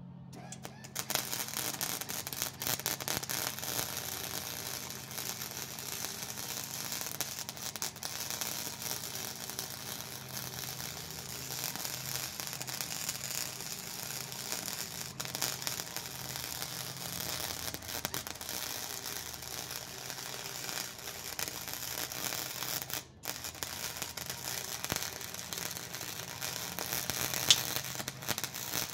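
Wire-feed welder's arc crackling and sizzling steadily as a weld bead is run along a metal joint to fill a missed gap, starting about a second in. The arc breaks off briefly about two-thirds through, and a single sharp pop stands out near the end, over a steady low hum.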